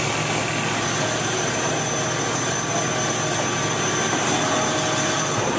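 Steady roar of a burning building being doused by fire hoses: the rush of hose streams and flames, with faint thin high whines over it.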